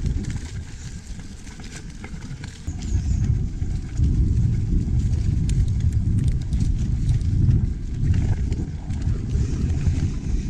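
Heavy wind rumble on a GoPro's microphone during a mountain bike ride, mixed with scattered rattles and clicks from the bike on the trail. The rumble grows louder about three to four seconds in.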